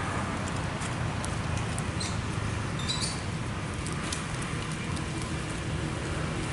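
Steady outdoor background noise with a low hum, broken by faint scattered clicks and a brief high chirp about three seconds in.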